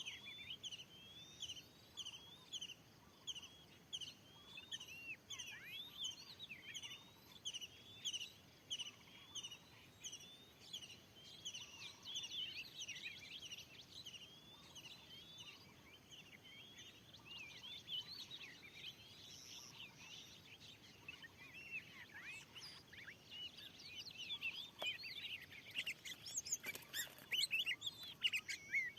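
Oriental magpie-robin (kacer) calling: short chirps repeated about twice a second, turning into a busier, more varied run of whistled notes, loudest near the end.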